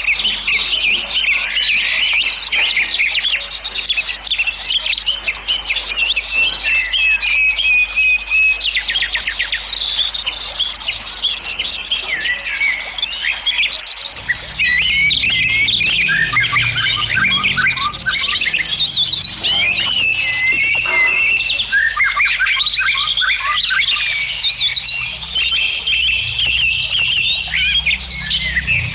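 Many small birds chirping and twittering, a dense chorus of quick calls and trills. About halfway through, a low rumble joins in underneath.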